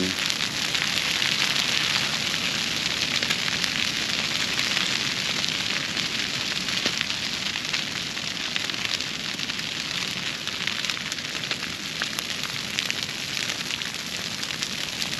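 Grass fire burning through dry broomsedge: a steady, dense crackling hiss with sharp pops scattered throughout, easing slightly in the second half.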